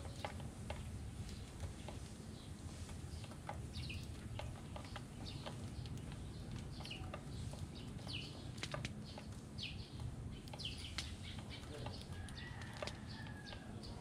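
Sparrows pecking seed off a plastic tray: many small irregular taps, with short high chirps scattered throughout. A longer steady whistled note comes in about twelve seconds in, over a low steady background rumble.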